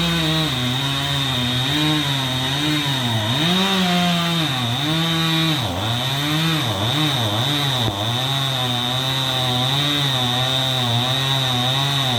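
Chainsaw cutting into a tree, its engine pitch wavering up and down throughout and sagging several times in the middle, with a steady high whine over it.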